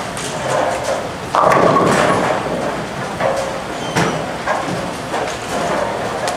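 Bowling ball rolling down the lane and crashing into the pins about a second and a half in, then pins clattering. Knocks and pin crashes from neighbouring lanes are heard throughout.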